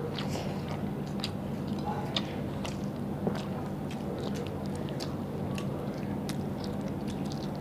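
Close-up chewing and mouth smacking from two people eating mutton curry and rice by hand, with many short wet clicks scattered throughout, over a steady low hum.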